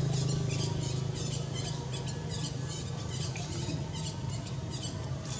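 Outdoor ambience: short high chirps repeating a few times a second over a steady low hum.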